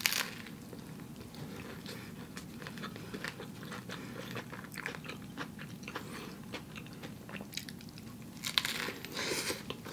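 A person biting into an Impossible Burger and chewing, with irregular small crunches and mouth clicks. There is a sharp bite right at the start and a louder cluster of bites and crunches near the end.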